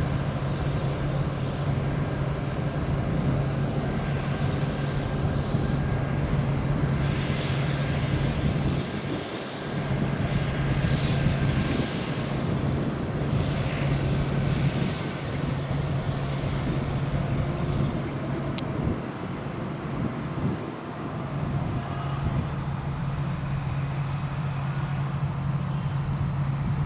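Tracked rotary tiller's Kubota 95 diesel engine running steadily under load as it churns a wet rice paddy, a constant engine drone that briefly dips about nine and twenty-one seconds in.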